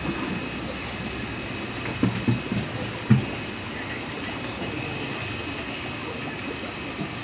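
Steady hum and rush of aquarium aeration, air pumps driving bubbling sponge filters, under a faint steady high whine, with a few dull low thumps about two and three seconds in.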